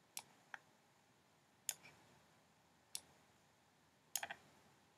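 Computer mouse button clicking a handful of times at irregular intervals, with a quick cluster of clicks about four seconds in: clicks placing the corners of rectangles in a drawing program.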